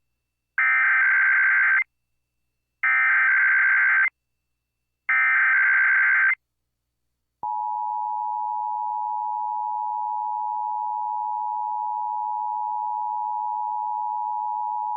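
Emergency Alert System SAME header sounding for a required weekly test: three bursts of digital data tones, each a little over a second long with about a second between them. From about seven seconds in comes the steady two-tone EAS attention signal (853 and 960 Hz).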